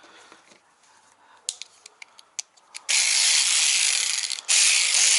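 Cordless ratchet run twice in short bursts of about a second and a half each, its motor spinning the head with fast pawl clicking. A few separate clicks come before the runs.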